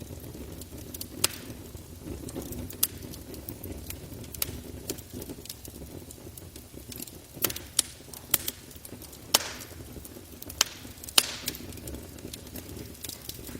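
Campfire burning wood, crackling with sharp, irregular pops over a low steady rumble.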